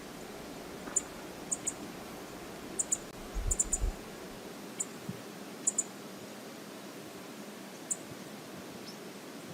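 Steady rush of river water, with about a dozen scattered sharp, high-pitched ticks and a brief low rumble about three and a half seconds in.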